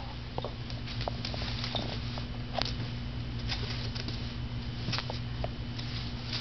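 Toy schnauzer puppy moving about: scattered light clicks and scuffs over a steady low hum.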